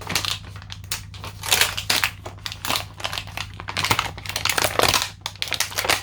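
Toy cap gun's plastic packaging being opened by hand: irregular crinkling and crackling of thin plastic, over a steady low hum.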